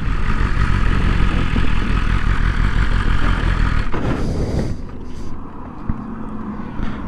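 Sport bike ridden at speed with heavy wind rush over the microphone, then slowing and pulling up. From about five seconds in the engine idles with a steady low hum.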